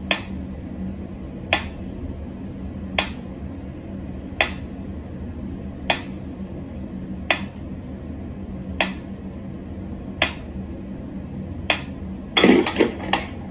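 Mechanical pyramid metronome ticking slowly and evenly, one sharp tick about every second and a half. Near the end a quick flurry of louder knocks and rattles breaks the beat as a cat paws at the swinging pendulum.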